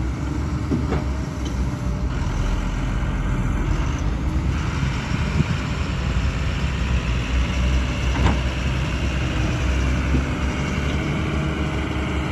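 Heavy diesel engines of a crawler excavator and a tipper truck running steadily in a low rumble, with a couple of short knocks, the clearest about eight seconds in.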